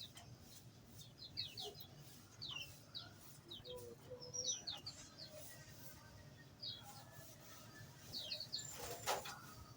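Small aviary birds chirping: many short, high, downward-sliding chirps from several birds, scattered and irregular. A brief rustling burst, the loudest sound, comes near the end.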